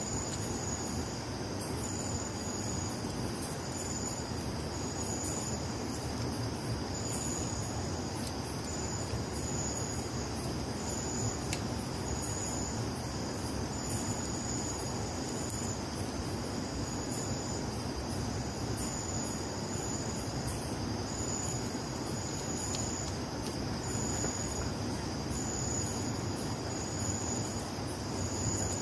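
Crickets and other night insects calling: a steady high trill alongside a higher, short chirp repeated about once a second, over a low background rumble.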